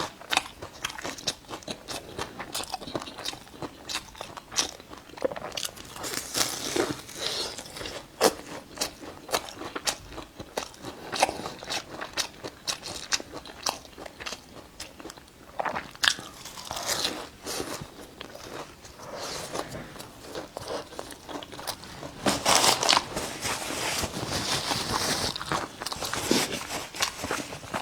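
Biting into and chewing a flaky-crusted, meat-filled Suzhou-style mooncake: a dense run of crisp crackles and crunches, with louder crunchy stretches about halfway through and again later.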